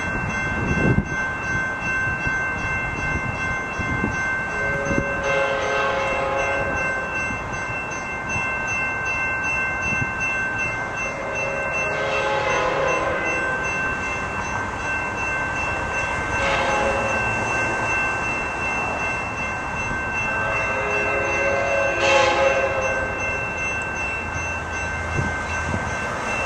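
Hybrid K5LA horn on an Amtrak F59PHI locomotive, heard from a distance as the train approaches, sounding the grade-crossing signal: two long blasts, a short one, then a final long one.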